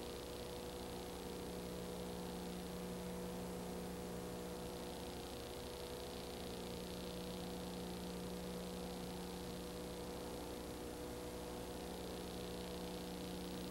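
Steady electrical hum with hiss, unchanging throughout, with no other sound: the background noise of a silent film's transfer to video.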